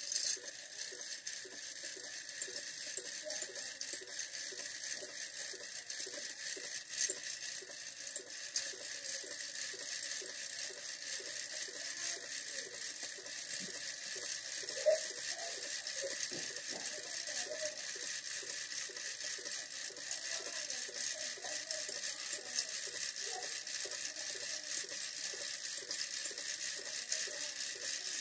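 Motorised coil winding machine running steadily, winding copper wire onto the bobbin of a 300B valve-amplifier output transformer. It makes a steady whirring hiss with a regular light ticking, and a couple of small knocks along the way.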